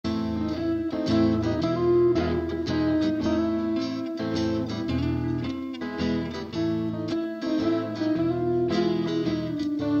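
Instrumental guitar music: plucked chords and picked notes at a steady pace, with no singing.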